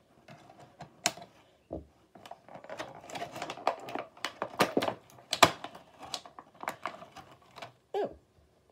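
Plastic toy packaging being handled and opened: a quick, uneven run of sharp clicks, crackles and rustles as small Bakugan parts are taken out.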